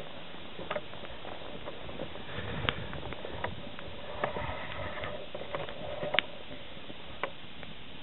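Wood campfire crackling, with sharp irregular pops every second or so over a steady hiss; the loudest pop comes about six seconds in.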